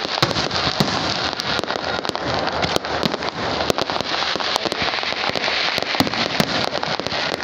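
Aerial fireworks display: a dense, unbroken run of sharp bangs and crackling as shells burst overhead.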